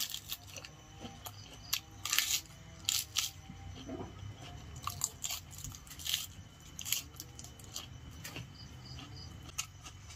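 A person chewing and eating Korean instant ramen noodles up close, with irregular wet mouth clicks.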